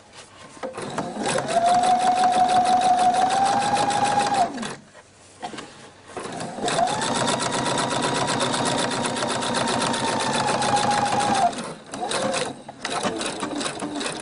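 Electric sewing machine stitching a narrow seam through several layers of fabric, in two runs of a few seconds each with a short stop between. The motor's whine rises as it speeds up and drops as it stops, under a fast rattle of needle strokes. A few short, stop-start bursts of stitching follow near the end.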